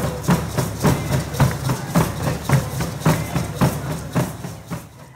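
Frame drums and a large hand drum beaten together in a steady rhythm, about two strong beats a second with lighter strokes between. The drumming fades out near the end.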